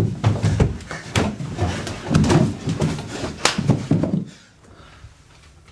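Several people's footsteps thudding up a carpeted wooden staircase, with bumps and knocks, and one sharp bang about three and a half seconds in. The noise then stops abruptly, leaving a quiet room with a faint steady low hum.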